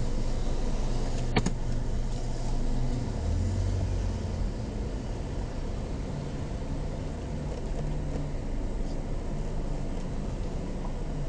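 SUV engine and road noise heard from inside the cabin as the car drives slowly: a steady low hum whose pitch shifts a little. A single sharp click comes about a second and a half in.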